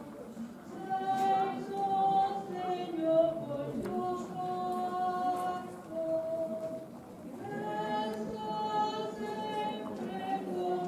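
A group of voices singing a hymn, moving through a melody in long held notes.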